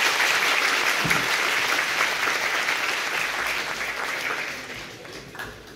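Large audience applauding, the clapping thinning out and dying away over the last couple of seconds.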